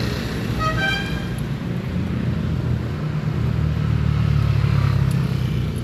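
Road traffic: a motor vehicle engine running close by, growing louder over the second half, with a short horn toot about a second in.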